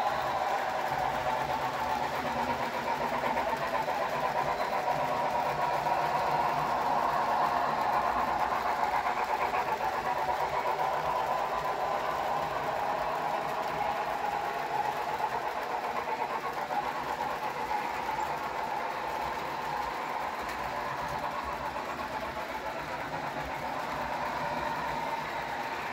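Broadway Limited HO-scale model train running along the layout track: a continuous rolling and rumbling of the locomotive and freight cars with the locomotive's onboard sound, swelling about a quarter of the way in and easing off again.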